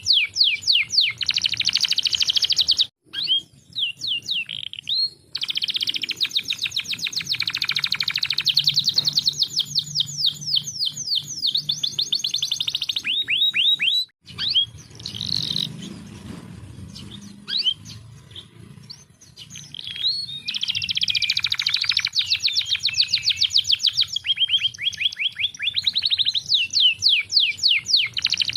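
Domestic canary singing long, fast trills and rolls of rapidly repeated high notes, with a quieter, sparser stretch in the middle.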